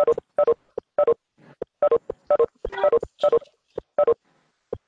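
Video-conference leave notification chimes: short two-note falling beeps repeating about twice a second as participants drop out of the call.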